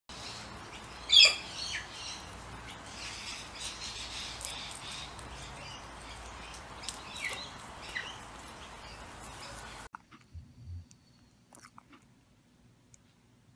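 Guinea pigs squeaking: a loud high chirp that falls in pitch about a second in and a few softer ones later, over a steady hiss. Near the end the sound drops to a faint hush with a few soft bumps.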